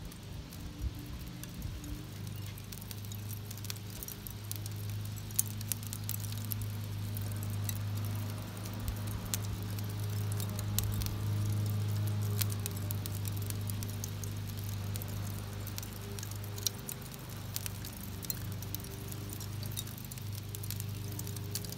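Burning lump charcoal crackling and popping with scattered sharp clicks over a steady low hum.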